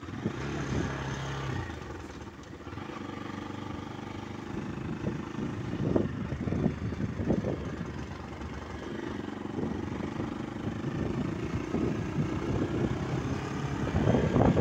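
Motor vehicle running along a road: steady engine hum and road noise, with a few louder swells about halfway through.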